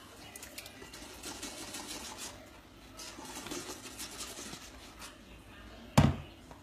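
Hot coconut oil pouring from a stainless steel jug into a filter bag, trickling and dribbling through into the container below. Near the end comes a single sharp knock as the jug is set down.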